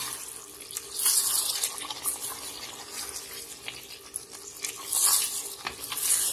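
A wooden spoon stirs thick chicken curry gravy in an aluminium pressure-cooker pan, making wet sloshing and scraping sounds. Louder swishes come about a second in and again around five and six seconds.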